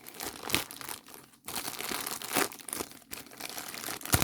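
Packaging crinkling and rustling in irregular bursts as a diamond painting kit is handled and unwrapped, with a sharp click near the end.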